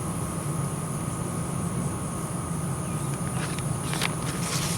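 Outdoor rural background: insects buzzing steadily over a low, continuous rumble, with a few faint clicks near the end.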